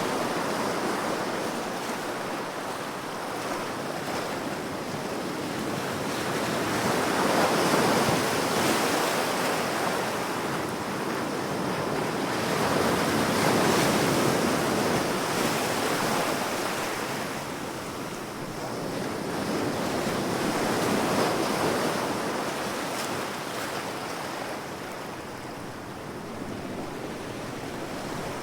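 Ocean waves breaking and washing in, a continuous rush that swells and fades every six seconds or so.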